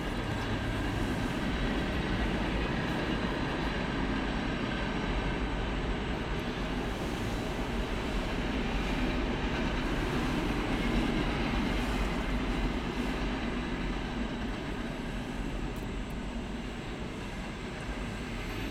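Freight train cars (boxcars and covered hoppers) rolling past, their wheels making a steady running noise on the rails that eases slightly near the end.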